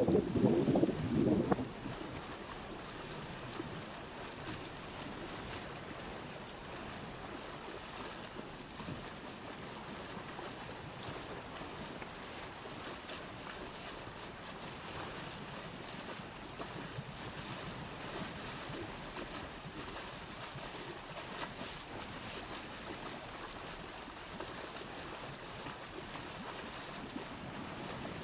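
Steady outdoor rushing noise with no music or speech, louder and lower for the first second and a half, then even.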